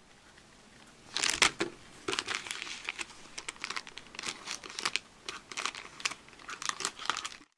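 Toy packaging crinkling and tearing as it is opened by hand, a run of irregular crackles that is loudest about a second in.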